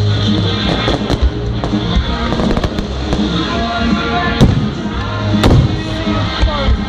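Fireworks going off: several sharp bangs, the loudest about four and five and a half seconds in, over continuous loud music.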